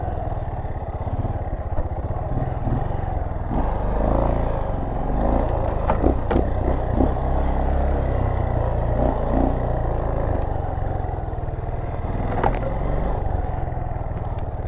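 Dirt bike engine running at trail speed over rough ground, with a few sharp knocks and rattles from the bike, most clearly about six seconds in and again near the end.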